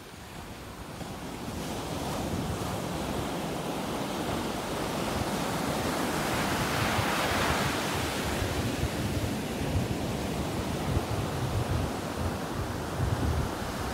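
Sea waves breaking and washing up a coarse, pebbly beach. The surf noise builds from a lull to a loud wash about halfway through, with low wind buffeting on the microphone later on.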